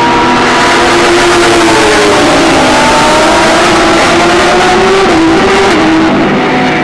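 Several GT3 race car engines running at once as a pack accelerates out of a corner, their pitches overlapping and climbing, with a drop in pitch about five and a half seconds in as a car changes gear.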